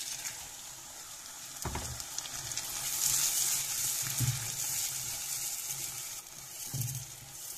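Hot oil sizzling in a nonstick pan as grated tomatoes are poured onto frying onion, garlic and diced peppers and stirred in with a silicone spatula. The sizzle grows louder about two to three seconds in.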